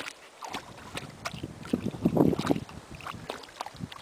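Water splashing and sloshing irregularly as dogs wade in shallow lake water, loudest about two seconds in.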